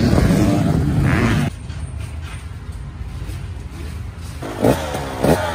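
Motocross bikes' engines running loud on the track, cut off suddenly about a second and a half in. A quieter low rumble follows, then near the end a dirt bike engine is blipped several times, each rev falling away quickly.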